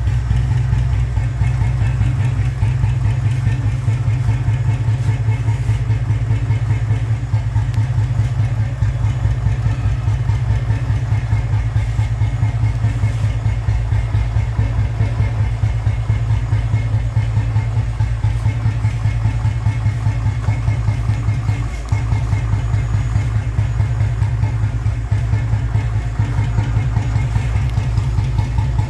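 Royal Enfield Bullet 500's cast-iron single-cylinder engine, with points ignition and a 12.5 kg heavy crank, idling with a slow, even thump.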